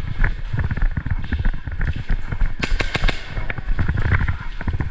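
A quick burst of about five sharp cracks a little past halfway through, over constant low rumbling and thumping.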